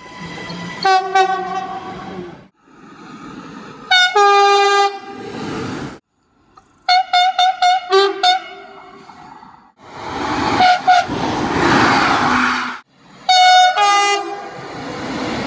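A run of short clips of train horns sounding. There are several long blasts holding chords, a string of about six quick toots, and a passing train's rushing noise with brief horn notes. Each clip cuts off abruptly.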